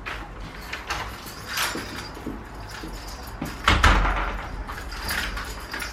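A door being handled: a string of short scrapes and knocks, with one heavier thump just under four seconds in.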